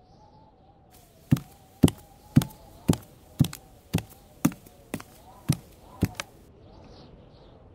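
About ten sharp thumps at an even pace of roughly two a second, starting about a second in and stopping a little after six seconds, over a faint wavering tone. They sound like footstep effects for a walking creature.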